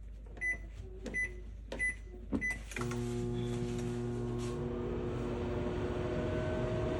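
Microwave oven keypad beeping four times as it is set for another 10 seconds, then the oven starting up and running with a steady hum.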